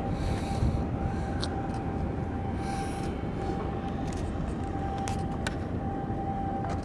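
Steady low rumble of harbour ambient noise, with a faint steady whine and a few light clicks.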